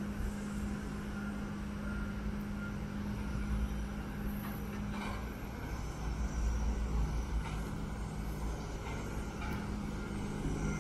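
Airport apron ambience: a steady low engine hum from aircraft and ground vehicles, its pitch dropping slightly about halfway, with a low rumble that grows louder about six seconds in.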